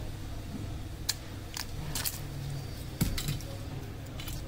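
Small sharp clicks and snaps as a Redmi Note 10 Pro's main circuit board is unclipped and lifted out of the phone's frame, the loudest click about three seconds in, over a low steady hum.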